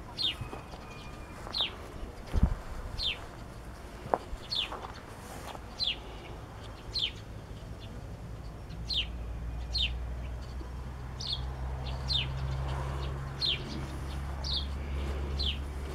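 A bird repeating one short, high, falling call about once a second. A low thump comes about two seconds in, and from about halfway a low steady hum sets in underneath.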